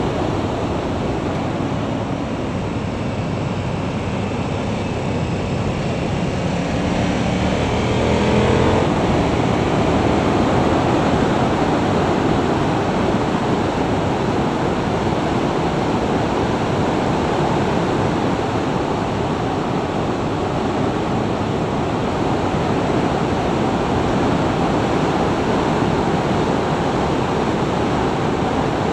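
Motorcycle riding at about 60 mph, heard mostly as steady wind rushing over the microphone. The engine note shows through and rises briefly about seven to nine seconds in.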